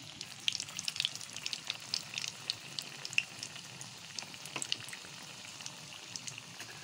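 Besan-battered pakoras deep-frying in hot oil in a kadhai: a continuous sizzle with a dense crackle of small pops.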